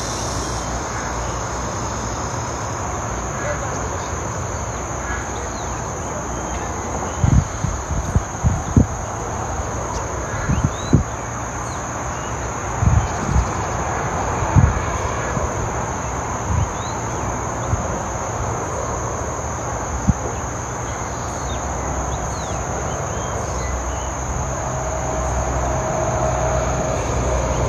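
A steady high-pitched insect drone over a constant hiss, with scattered short low thumps through the middle stretch.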